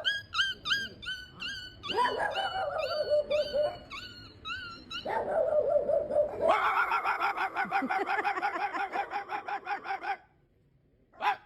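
Dogs yipping and howling: a string of short, high, rising yips, about three a second, then a lower held howl under more yips. A long wavering howl follows and cuts off suddenly near the end.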